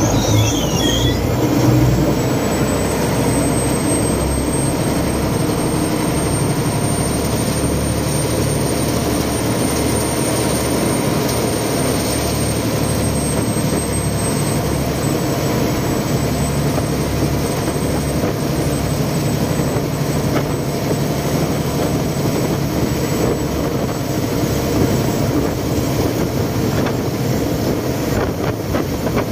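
Canal express boat's diesel engine running loud and steady under way, with water rushing along the hull and a faint high whine that rises slightly in the first few seconds and then holds.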